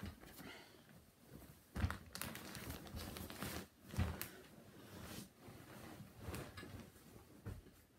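Close rustling and crinkling with several irregular knocks and thumps, as of things being moved and handled right beside the microphone.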